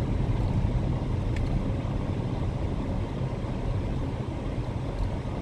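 Steady road and tyre rumble inside the cabin of a Mitsubishi Outlander PHEV at about 90 km/h, running on electric power with the petrol engine off, while the lightest regenerative-braking setting (B1) slows it.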